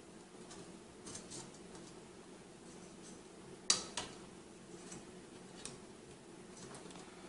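Light handling noises and small clicks of metal and plastic parts being fitted by hand onto a graphics-card heatsink, with two sharp clicks close together about halfway through.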